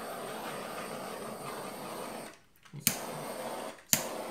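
Small handheld blowtorch flame hissing steadily as it is played over wet epoxy resin to pop surface bubbles. The hiss cuts out about two and a half seconds in and comes back with a sharp click, then drops briefly again near the end and restarts with another click.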